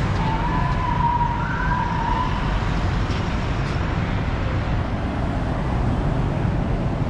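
Road traffic on a wide city avenue, cars passing with a steady low rumble. In the first two seconds a single high tone is held, with a brief higher tone over it.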